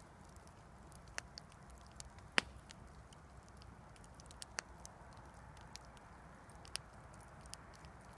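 Wood campfire crackling: irregular sharp pops and snaps over a soft, steady background noise, the loudest pop about two and a half seconds in.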